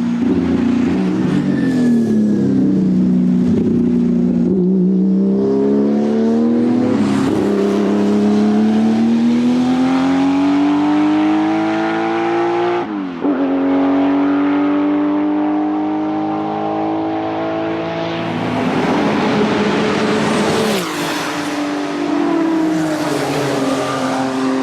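Porsche 935 K3's 3.2-litre twin-turbo flat-six racing engine pulling hard, its pitch climbing steadily through a long gear, breaking sharply with an upshift about halfway through, then climbing again before dropping near the end.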